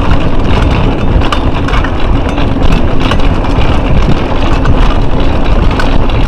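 Loud wind rumble on an action camera's microphone while moving, with frequent rattles and knocks from rough ground.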